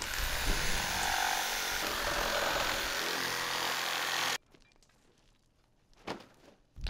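Electric reciprocating saw running as it cuts through a roll of plastic sheeting, stopping suddenly about four seconds in; only a few faint small sounds follow.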